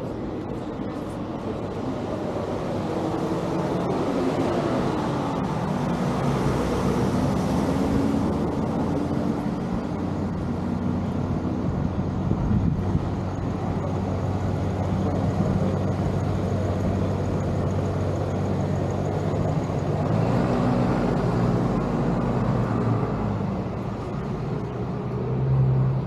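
Road traffic: vehicles driving past with a steady engine and tyre hum, their pitch shifting as they pass.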